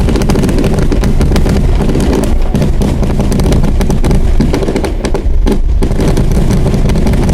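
Fireworks finale barrage: loud, dense, continuous crackling and popping over a low rumble.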